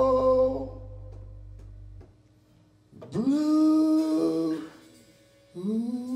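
Live blues performance: a long held sung note ends under a second in, then after a short pause two more long held notes follow, each sliding up into its pitch.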